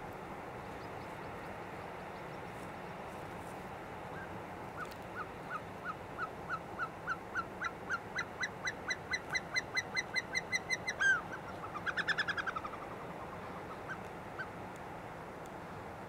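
Caucasian snowcock song: a series of short whistled notes that starts slowly about five seconds in and quickens while rising slightly in pitch. It ends in a louder, drawn-out falling note and a fast stuttering run, with a couple of stray notes after. Steady background hiss throughout.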